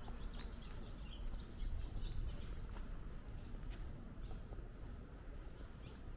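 Small birds chirping in short, high calls, most of them in the first three seconds, over a steady low outdoor rumble.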